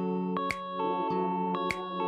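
Background music led by guitar, with sustained notes and a regular strike of the beat about every 1.2 s.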